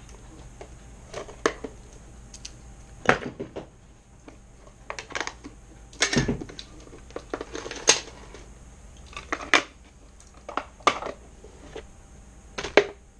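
Packaging of a tiny-whoop drone frame kit being opened and handled: plastic bags rustling, with irregular clicks and several sharper knocks as small parts and tools are picked up and set down on the bench.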